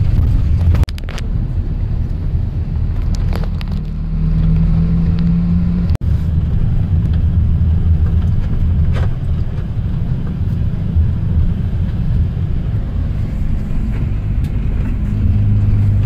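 Engine and road noise heard from inside a moving vehicle: a steady low rumble with a few short clicks, broken off sharply about a second in and again around six seconds where the footage cuts.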